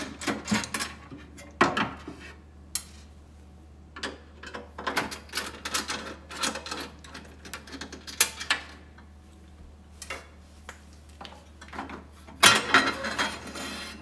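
Scattered metallic clicks and scrapes of a screwdriver working the screws on an espresso machine's metal front cover. Near the end comes a louder clatter as the stainless-steel front panel is pulled loose.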